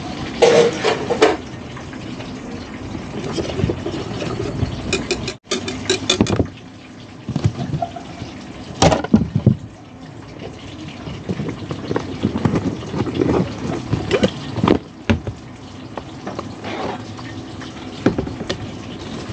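Irregular clatter and knocks of utensils and food containers being handled, tongs against a steel mixing bowl and plastic tub, over a steady hiss.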